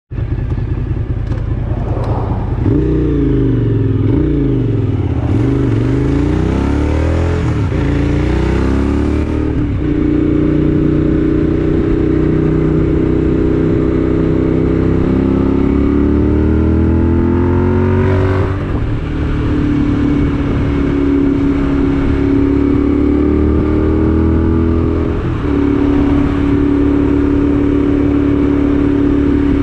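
A road vehicle's engine running under load up a grade. Its pitch rises and falls with the throttle and jumps sharply near ten, eighteen and twenty-five seconds in.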